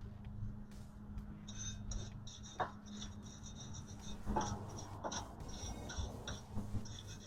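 Light clinks and handling noises of brake parts and hand tools being worked on at the rear brake: a few sharp clicks over a steady low hum, with a rapid high chirping in the background from a second or so in.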